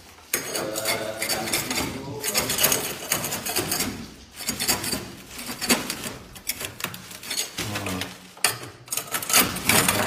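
A flock of edible-nest swiftlets in a dark swiftlet house, making a dense, rapid rattle of clicks mixed with twittering.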